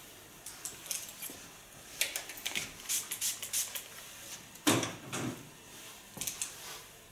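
Handling sounds of hair-cutting tools: small clicks and rustles of a comb and a plastic sectioning clip being worked into the hair, with one louder knock about two-thirds of the way through and a few more clicks near the end.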